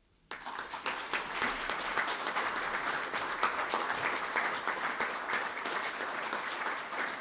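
Audience applauding: many hands clapping, breaking out suddenly a moment in and continuing steadily.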